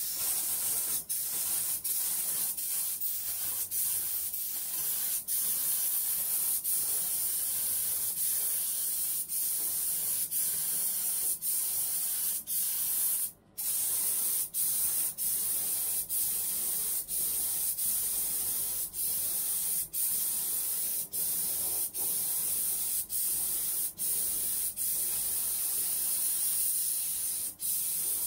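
Compressed-air spray gun spraying gel coat: a steady high hiss broken by brief breaks roughly every second, with a momentary silence about halfway through.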